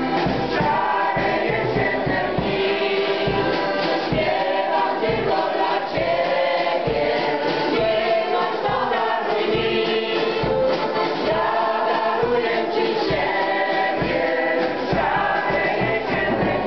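Polish folk ensemble of women and men singing a song together in several voices, with accordion accompaniment keeping a steady, even beat.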